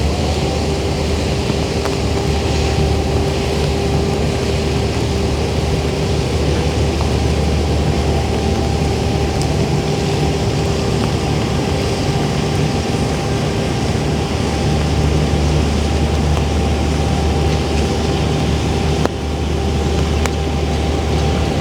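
Steady machine hum with a low drone and a held mid-pitched tone over a constant noise, dipping briefly near the end.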